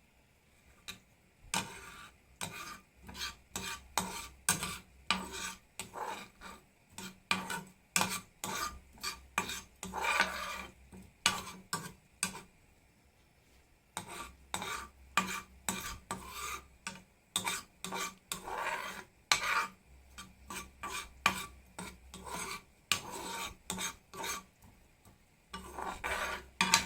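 A kitchen utensil stirring and scraping in a pot or dish, knocking and rasping against it about twice a second, with a pause of about two seconds midway and a few longer scrapes.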